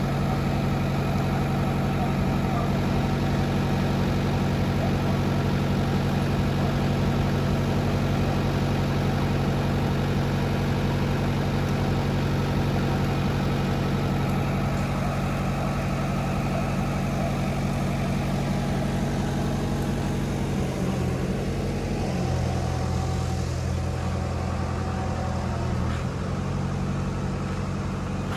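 A motor vehicle's engine running steadily, with a change in its tone about two-thirds of the way through.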